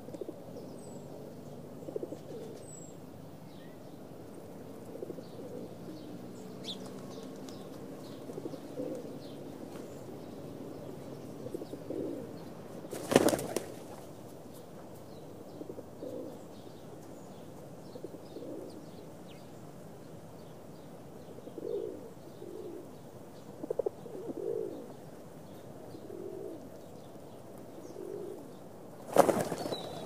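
Pigeons cooing, short low calls repeated every second or two, with two loud short bursts of wing flapping, about a third of the way in and again near the end.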